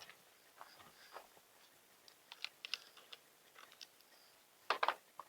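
Faint, scattered light clicks and short rustles, with a brief cluster of louder ones near the end.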